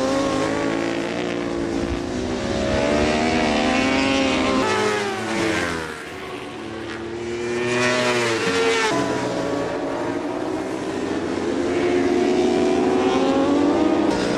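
Racing motorcycle engines at high revs on a circuit, several bikes overlapping, their pitch climbing as they accelerate and sweeping down as they pass, once about a third of the way in and again past halfway.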